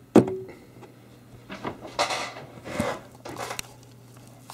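Handling noise from the camcorder being picked up and moved: a sharp knock about a quarter second in, then a few short rustling scrapes.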